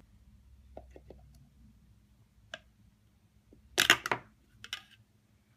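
Metal tongs clicking and clattering against a hard plastic cup: a few faint ticks, a single sharp click, then a loud cluster of clicks about four seconds in.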